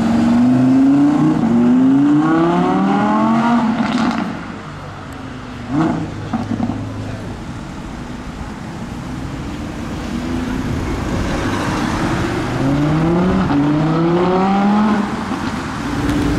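Audi R8 V10 Plus's naturally aspirated V10 accelerating hard through the gears, its note climbing and dropping back at each upshift, in the first few seconds and again about three-quarters of the way through. In between there is lower, steadier engine and traffic noise with one sharp thump about six seconds in.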